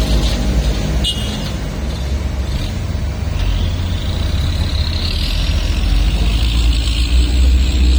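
Heavy diesel construction machinery running with a steady deep rumble. A brief sharp click comes about a second in, and from about three and a half seconds a high hiss rises and holds.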